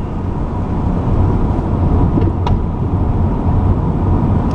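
Steady low rumble of a car's engine and road noise heard inside the cabin while driving, with a faint click about two and a half seconds in.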